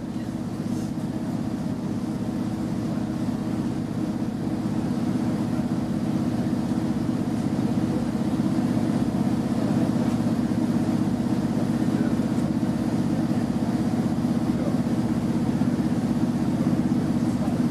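Steady drone heard inside the cabin of a Class 153 diesel railcar: its underfloor Cummins six-cylinder diesel engine running as the train travels. It grows a little louder over the first several seconds, then holds steady.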